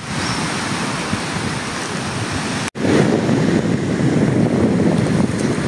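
Wind buffeting the microphone, a steady rushing noise. It drops out for an instant just under three seconds in and comes back louder and deeper.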